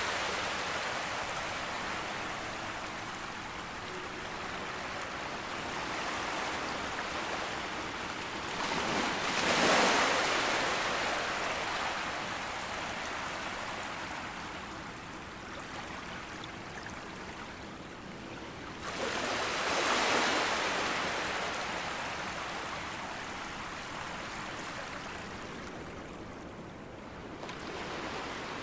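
Moderate sea waves breaking on a beach: a continuous wash of surf, with two larger waves crashing about ten seconds apart and each drawing back slowly.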